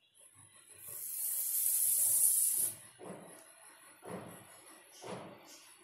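A loud hiss for about two seconds, then a rubbing creak about once a second as the metal chakli press is turned by hand and pushes stiff wheat-flour dough out through the star-shaped disc.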